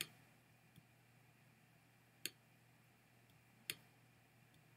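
Near silence broken by three faint computer mouse clicks, about a second and a half apart.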